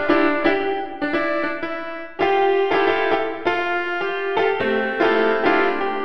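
Piano music: chords and a melody, with notes struck roughly twice a second, each ringing and fading until the next.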